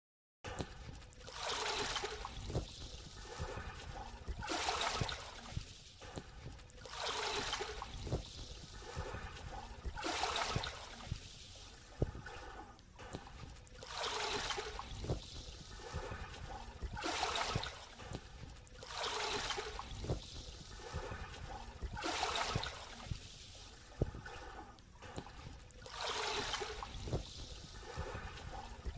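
Small waves lapping in over a shallow sandy shore, each wash swelling into a soft hiss and fading, about every two and a half to three seconds.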